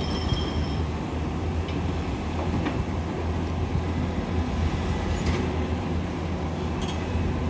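Heavy diesel engine of a SANY SY500H 50-ton excavator running steadily with a deep low hum, with a few faint knocks.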